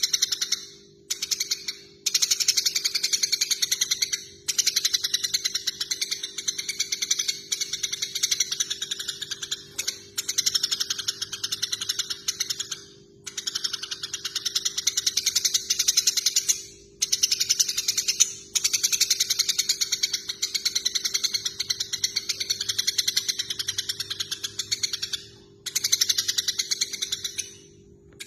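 Eurasian tree sparrows giving fast, chattering fighting calls: long runs of rapid high chirps broken by brief pauses, over a faint steady hum.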